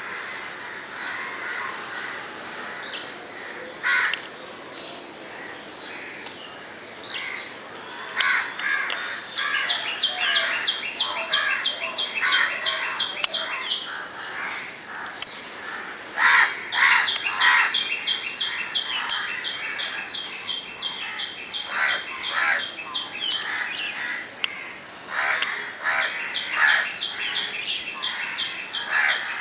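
Birds chirping and calling in the morning chorus, with lower, harsher calls throughout. Three times, one bird repeats a rapid run of high notes, about five a second, each run lasting a few seconds.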